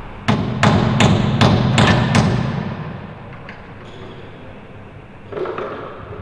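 Six sharp metal knocks in quick succession, about three a second, typical of hammer blows on metal during airframe repair work. A softer knock follows near the end.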